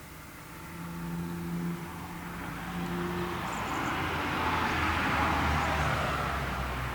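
A cat's yawn slowed down: a drawn-out breathy rush of air that swells over a few seconds over a low hum.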